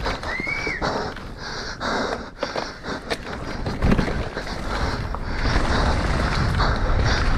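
Orbea Rallon enduro mountain bike descending a loose dirt trail at race speed, heard from a camera on the rider: tyre noise on dirt with rattles and clacks from the bike, the rider breathing hard, and a brief squeal near the start. From about five seconds in, a steadier low wind and tyre rumble builds as the speed rises.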